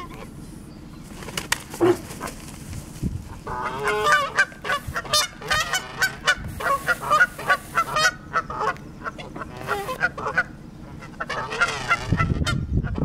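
Canada geese honking in a rapid run of calls, a long bout starting about three and a half seconds in and a shorter one near the end: territorial threat calls aimed at cattle, the geese with necks stretched low toward them.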